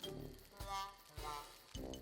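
Soft background music for a children's cartoon, with a few gentle notes.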